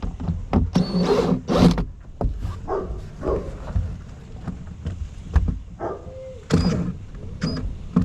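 Irregular knocks, clinks and rustles of hand work on a rooftop tent's fittings: tools and nuts being handled, with a couple of brief metallic rings.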